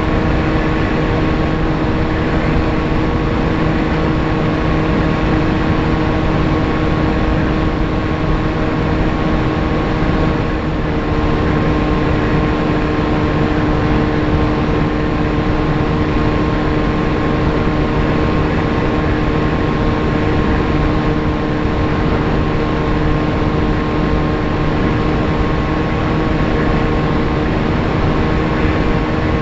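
A VAS Chimera FPV plane's electric motor and propeller humming steadily at cruise, under heavy wind rush. The pitch shifts slightly about ten seconds in.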